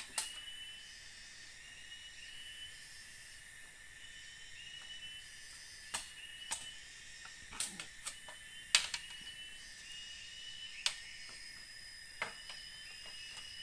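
Forest insects chirping steadily in a repeating high-pitched chorus, with about seven sharp knocks of bamboo being handled and struck, the loudest a little before the middle.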